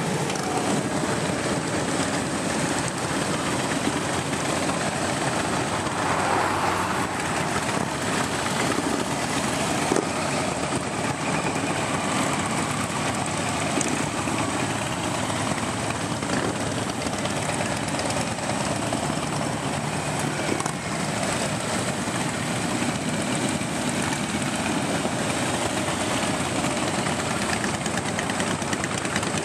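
A long column of large touring motorcycles riding slowly past one after another, their engines blending into a steady, continuous engine noise.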